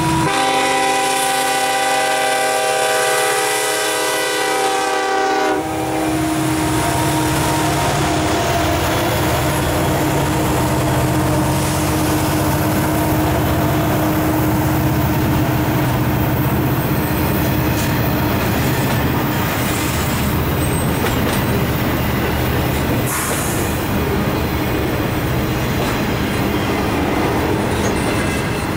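The horn of a Kansas City Southern SD70ACe diesel locomotive sounds a sustained chord that cuts off about five and a half seconds in. The locomotives then pass, and a double-stack intermodal train rolls by with a steady rumble of wheels on rail and clickety-clack.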